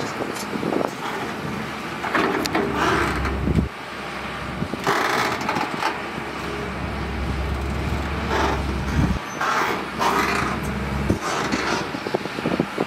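Caterpillar 320CL long-arm excavator's diesel engine running as the machine digs, its low rumble swelling several times for a few seconds as the hydraulics take load. Short bursts of noise break in every couple of seconds.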